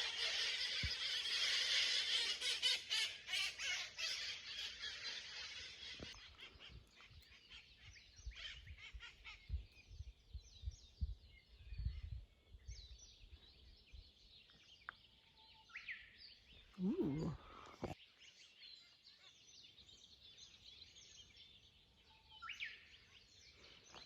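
Birds chirping and calling: a dense chatter of many birds for about the first six seconds, then scattered single chirps and calls.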